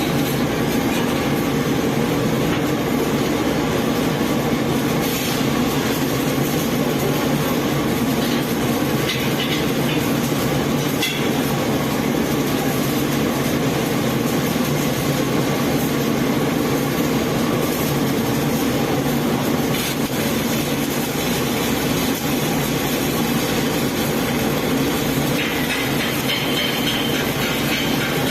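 Arc welding power source switched on and running, set to 100 amps: a steady, continuous hum and noise with no breaks.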